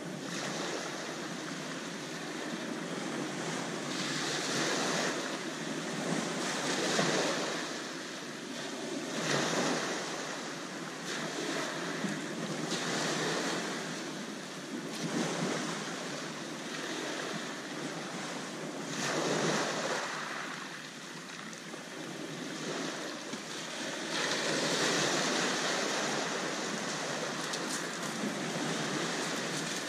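Small waves breaking and washing up a shingle beach, a steady hiss of surf that swells and falls back every few seconds.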